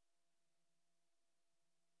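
Near silence: only faint electrical hiss and hum from a silent soundtrack.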